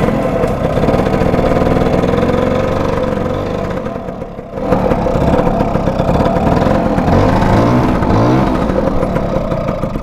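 Scooter engine running loud and steady, its revs dropping briefly about four seconds in, then picking up again and rising and falling near the end.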